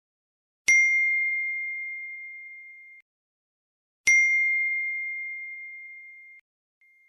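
A bright ding sound effect, played twice about three and a half seconds apart: each is a sharp strike that rings out on a single clear high tone and fades away over about two seconds.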